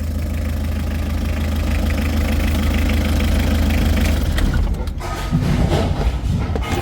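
Mitsubishi 4D56 four-cylinder diesel engine idling steadily, running again after its burnt fuel filter was replaced. About five seconds in, the engine noise drops and a few sharp clicks follow.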